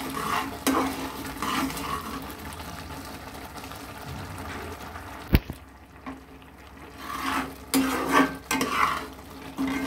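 Flat metal spatula stirring and scraping thick, granular kalakand mixture around an aluminium pot, scraping it off the sides, in repeated strokes over a faint sizzle of ghee. A single sharp click sounds about halfway through, followed by a briefly quieter stretch.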